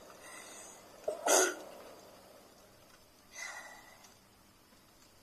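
A woman sneezes once, sharply and loudly, about a second in: a short intake followed by a brief burst. About two seconds later comes a fainter, breathy burst.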